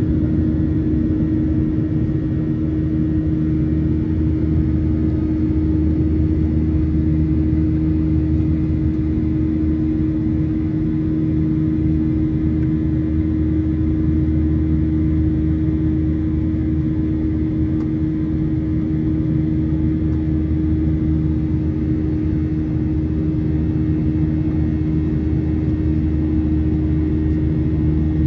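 Cabin noise of a Boeing 737-900ER with its CFM56-7B engines running: a steady drone with a constant hum and a low rumble underneath, unchanging throughout.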